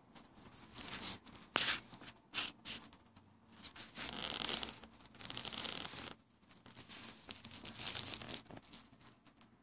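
Irregular scratchy rustling and crackling noises in uneven bursts, with one sharp crackle about a second and a half in.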